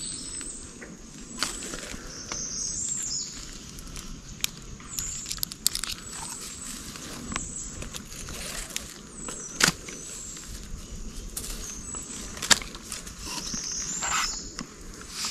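Rustling and handling noises with scattered sharp clicks and knocks, the loudest about a second and a half in, near ten seconds and near twelve and a half seconds.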